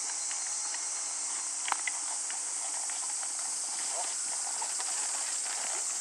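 Hoofbeats of a Thoroughbred horse trotting on sand arena footing under a rider, over a steady high hiss, with one sharp click a little under two seconds in.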